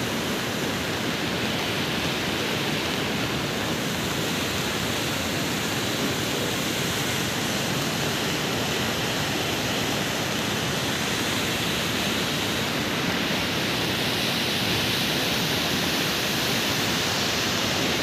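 Steady rushing roar of the Alaknanda River in flood, with fast brown floodwater running high.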